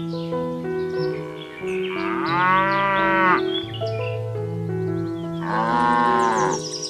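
A cow mooing twice, each moo about a second long and rising then falling in pitch, over background music with held notes.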